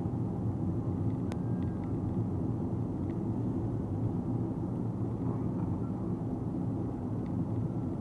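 Steady cabin road noise of a Nissan Note e-POWER driving on the highway: an even low rumble of tyres and road, heard from inside the car, with a few faint clicks.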